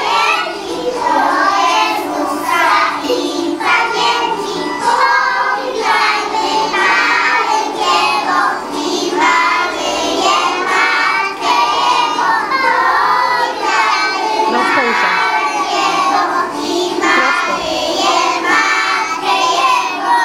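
A group of preschool children singing a Polish Christmas carol together.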